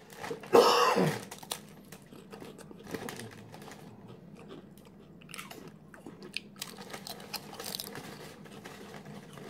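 A person biting into regular-cut potato chips, with a loud crunch about half a second in, then chewing with quieter crackling crunches, and another bite near the end.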